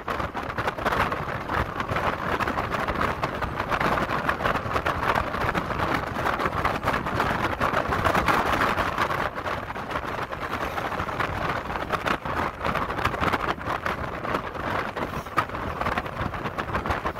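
Steady road and wind noise of a vehicle travelling at speed on a highway, with gusty wind rumble on the microphone, a little quieter from about halfway.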